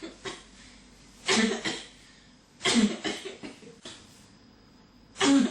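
A person in a coughing fit: three loud coughs, about a second in, near the middle and near the end, each followed by one or two weaker coughs.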